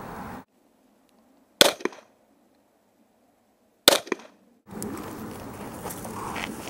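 Two sharp handgun shots about two seconds apart, each followed by a fainter crack a fraction of a second later.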